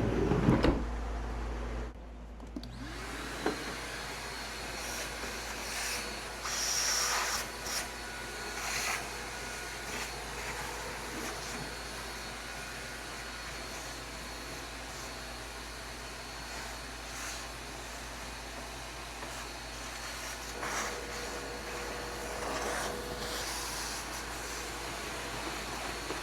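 Vacuum cleaner running steadily, a continuous noisy drone with a few brief louder moments.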